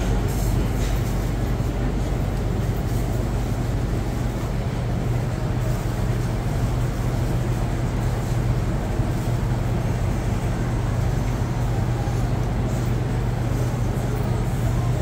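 Steady low mechanical hum over a constant rumble of street noise, unchanging throughout with no distinct events.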